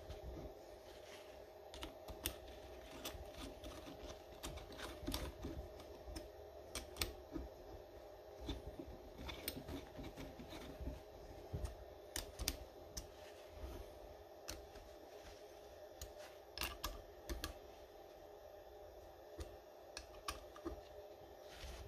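Irregular light clicks and ticks of a hex key working the screws of a taper-lock bushing, tightening a pulley onto an AC servo motor's shaft, over a steady hum.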